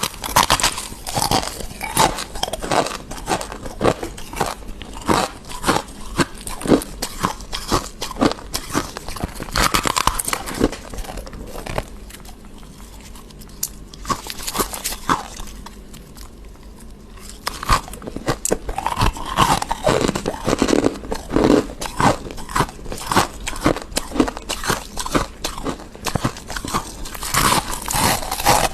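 Close-miked biting and chewing of squeaky freezer frost: a rapid run of crisp crunches that eases off for a few seconds around the middle, then picks up again.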